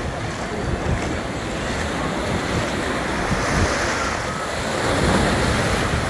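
Surf washing onto a sandy beach, with wind buffeting the microphone.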